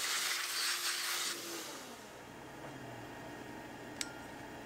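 Vacuum hose nozzle sucking loose ice shavings off a carved ice slab, an airy hiss that stops about a second and a half in. A single sharp click near the end.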